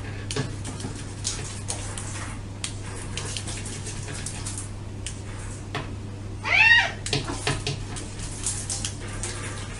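A domestic cat meows once, a single rising-then-falling call about two-thirds of the way through. Scattered light clicks and rustles and a steady low hum run underneath.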